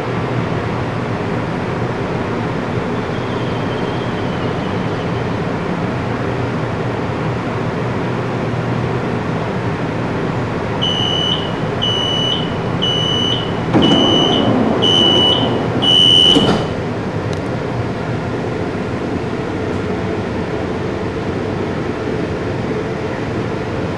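CSR Zhuzhou LRT train standing with its doors open, its equipment humming steadily, then the door-closing warning: six short high beeps about a second apart while the sliding doors run shut, ending in a sharp thump as they close.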